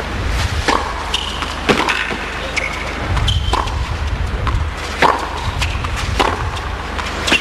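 Tennis rally: racket strikes on the ball at about one a second as the players trade groundstrokes, with a few short high squeaks in between over a low steady hum.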